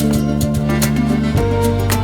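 Background music with guitar-like plucked strings, sustained bass notes and a steady beat.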